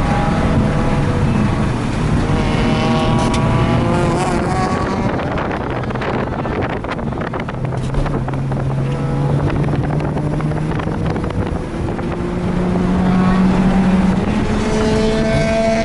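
Mazda RX-8's rotary engine under hard acceleration on track, the note climbing in pitch for the first few seconds, settling lower and steadier midway, then climbing again near the end. Wind buffets the microphone throughout.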